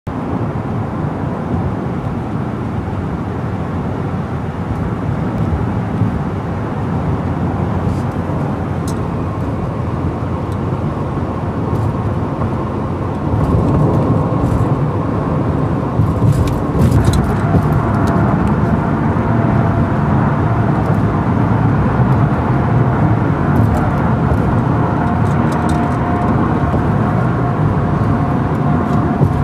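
Road and engine noise heard inside a car's cabin at highway speed: a steady rumble with tyre hiss that gets louder about thirteen seconds in.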